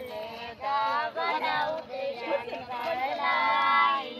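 A high voice singing a melodic song, with wavering held notes and one long sustained note near the end.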